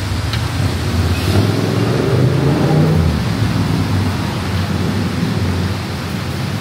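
Heavy rain falling steadily, with a low rumbling hum beneath it that swells about a second in and eases off after about three seconds.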